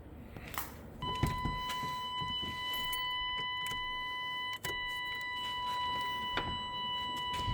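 Key turned to on in a 1994 Chevy pickup: a click, then a steady high electrical tone with overtones sounds from about a second in, breaking off briefly with a click near the middle, as the ignition circuit and fuel pump are switched on.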